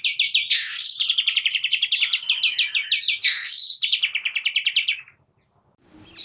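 Long-tailed shrike (cendet) singing: fast trills of about ten repeated notes a second, broken twice by a harsh rasping burst. The song stops about five seconds in, and a sharp falling whistle starts right at the end.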